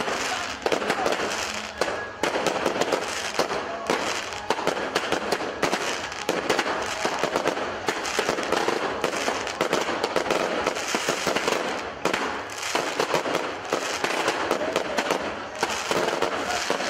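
Fireworks going off in a rapid, unbroken stream: many overlapping bangs and crackling from shells bursting close by.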